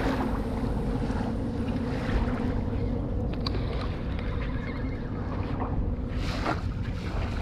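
Wind rumbling on the microphone over a steady low engine drone, with a short rustle about six seconds in.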